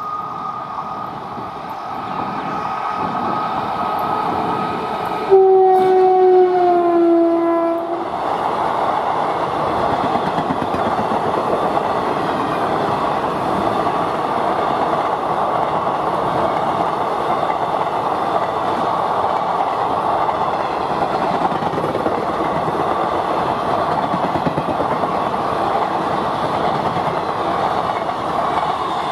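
WAP-4 electric locomotive approaching with a steady whine, then sounding its horn once for about two and a half seconds, about five seconds in, its pitch dropping slightly as it passes. The express's coaches then roll past with steady wheel-on-rail clatter.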